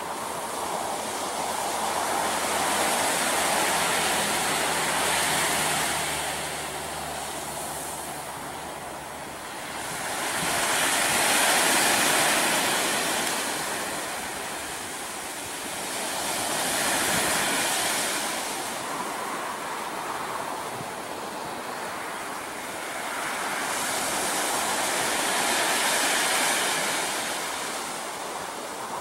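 Pacific Ocean surf: waves breaking and washing up the beach, the rush of water swelling and fading four times.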